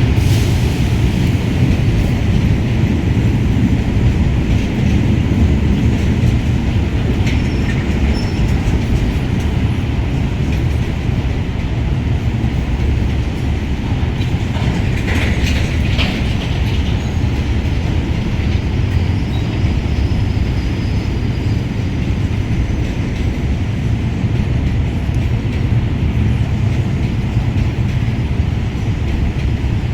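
Freight train hauled by a GEA-class diesel-electric locomotive running along the track: a steady, heavy rumble of engine and rolling wagons, with a short higher screech about halfway through.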